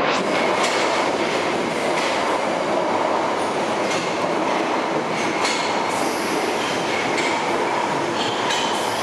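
A London Underground 1973 stock train runs into the platform with a loud, steady rumble of steel wheels on rail. Clicks come as the wheels cross rail joints, and brief high-pitched wheel squeals come and go.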